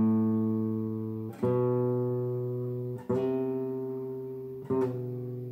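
Classical nylon-string guitar playing four slow single notes, about a second and a half apart, each left to ring and fade. It is a slow exercise in matching the pluck with the fretting finger, with the finger set down deliberately late, which is not how it should finally sound.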